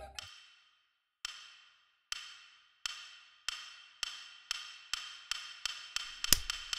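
Wooden clappers (hyoshigi) struck about a dozen times, the sharp clacks speeding up from about one a second to about three a second, each ringing briefly, the loudest near the end.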